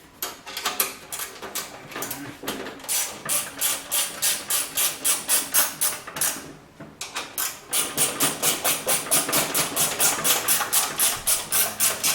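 Ratchet wrench clicking in a fast, even rhythm of about four clicks a second as the 3/8 inch bolts of a snowblower's bottom cover are run in, with a short break about halfway.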